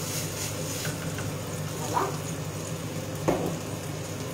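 Sliced porcini mushrooms frying in a pan with a steady sizzle, while a wooden spoon stirs a pot of bisque; two brief knocks come about two and three seconds in.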